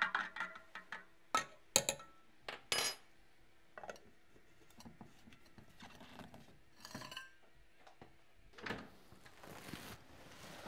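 A spoon clinking as it stirs a drink in a stainless-steel travel mug, with a few sharp ringing clinks in the first three seconds. Softer scraping and clicking follow as the mug's lid is screwed on, and a rustle comes near the end.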